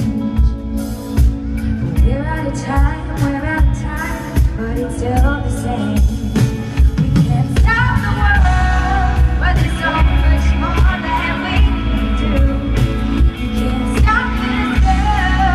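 Live pop song played loud by a band, with a woman singing a wavering melody over heavy bass and drums.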